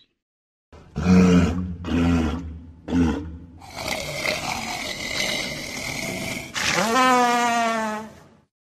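Animal calls: three short, deep roaring grunts about a second apart, then a rough, noisy stretch and a drawn-out call that rises in pitch and then holds.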